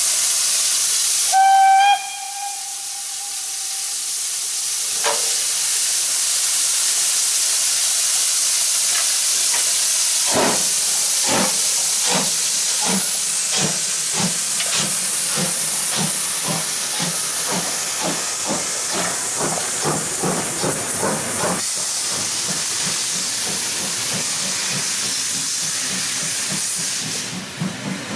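Class 52 steam locomotive (two-cylinder 2-10-0) hissing steam, giving one short whistle blast, then starting away: its exhaust chuffs begin slowly about ten seconds in and quicken as the train gets moving, blending into a continuous rush of steam and train noise in the last seconds.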